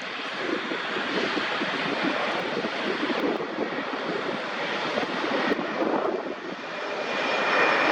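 Jet engine noise from a Swiss Airbus A220's Pratt & Whitney PW1500G geared turbofans as the airliner comes in to land. The noise grows louder, dips briefly, then swells again near the end, when a faint whine joins it.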